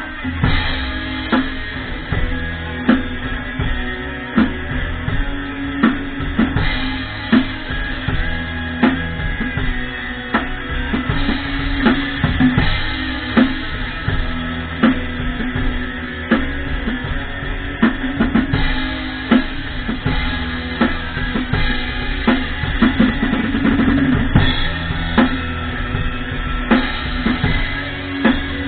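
Pearl drum kit played in a steady rock beat, with bass drum and snare strokes and louder accents every second or so, over a backing song with guitar.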